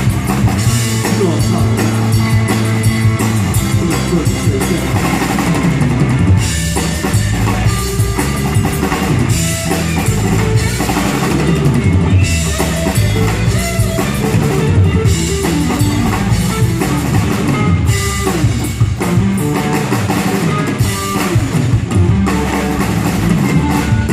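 Rock band playing an instrumental stretch of the song: drum kit, guitar and bass with no singing.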